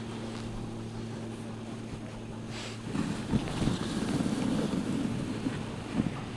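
Dog sled moving over snow: the runners scrape, and wind buffets the microphone. A steady low hum stops about three seconds in, and after that the scraping gets louder and bumpier.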